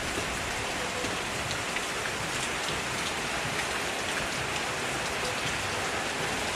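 Heavy rain falling steadily, a dense even hiss with scattered drops pattering on surfaces.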